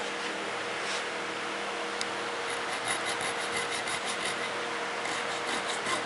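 Hand file scraping across a metal bolster/pommel plate in quick, short strokes, about three a second, starting a couple of seconds in after a few single strokes.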